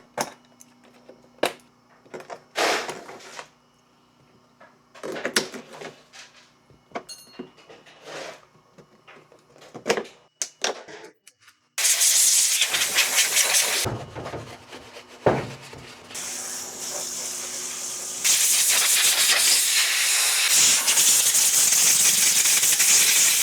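Scattered crinkles and rustles of the headlight being wrapped up to keep water out, then, about twelve seconds in, a steady hiss of water spraying onto the headlight housing for washing, louder again near the end.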